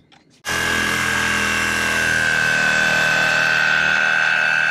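Cordless reciprocating saw cutting through a painted wooden deck railing, starting about half a second in and running steadily with a constant high whine.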